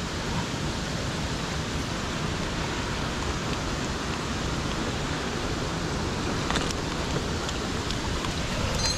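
Steady rushing of mountain stream water falling through a rocky gorge, with a few faint clicks of a hand and gear against the rock near the end.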